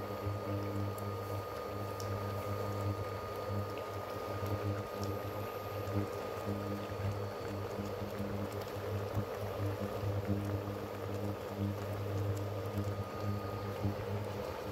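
Thick chicken gravy bubbling hard in a pot on an induction cooktop, a steady bubbling hiss. Underneath runs a low hum that keeps cutting in and out.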